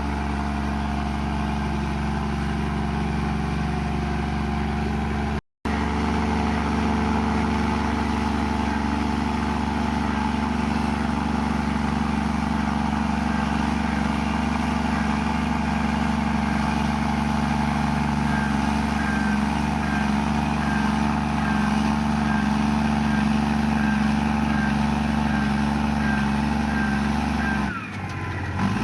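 Komatsu bulldozer's diesel engine running steadily under load with a low drone, dropping out for an instant about five seconds in. In the second half a faint high chirp repeats about twice a second.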